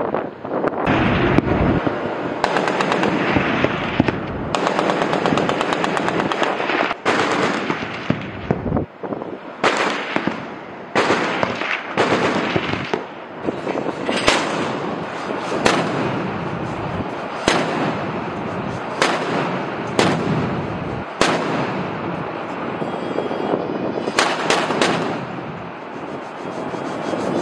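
MK-38 25 mm naval gun mount, an M242 Bushmaster chain gun, firing single rounds and short bursts every second or two. A steady rushing noise runs underneath.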